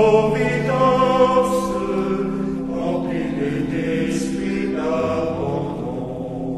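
Choir singing a slow chant with long held notes.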